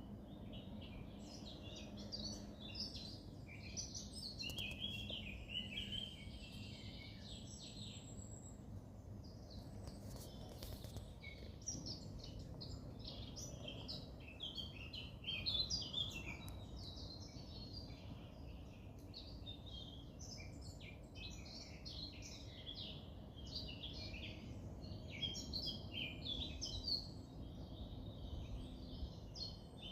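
Several wild birds singing together in woodland, a dense chorus of short chirps and trills, over a faint low steady background rumble.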